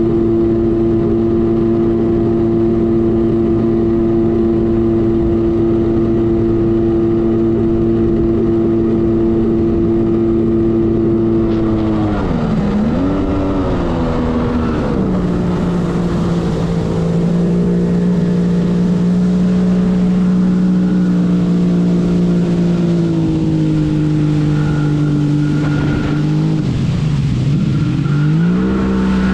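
1997 Arctic Cat TigerShark Monte Carlo 1000 personal watercraft engine running at a steady high speed, then easing off and coming back on about twelve seconds in. It settles at a lower steady pitch, dips again a couple of seconds before the end and picks back up, with rushing wind and water noise under it.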